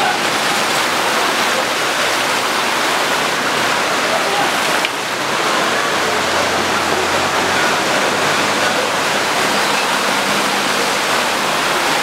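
Steady rushing of water in a rain-flooded street. A vehicle engine hums low for a couple of seconds in the middle.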